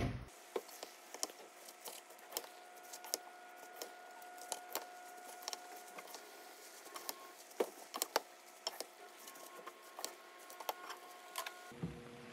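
Wooden spatula tossing cabbage and noodles in a stainless steel wok: irregular clicks and knocks of the spatula against the pan, over a faint steady whine.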